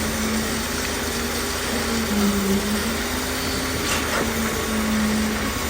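Engine of concrete-pouring machinery running steadily, its note shifting slightly up and down in pitch, with a couple of faint knocks about four seconds in.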